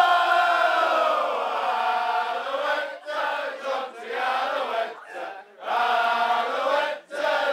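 A crowd singing together in unison, in short chant-like phrases with brief breaks between them.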